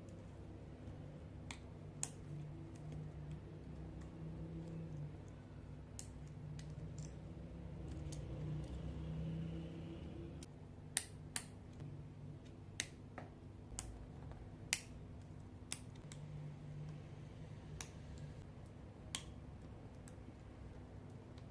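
Sharp plastic clicks of a laptop keyboard's keys being pressed and worked, a dozen or so at irregular intervals, over a low steady hum.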